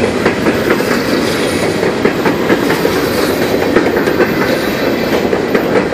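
Empty coal cars of a freight train rolling past, a steady loud rumble of steel wheels on rail with repeated clickety-clack of the wheels over rail joints.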